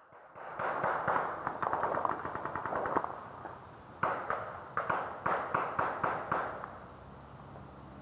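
Paintball markers firing from the opposing base: a dense rapid volley of pops for a couple of seconds, then a string of separate shots about a second later.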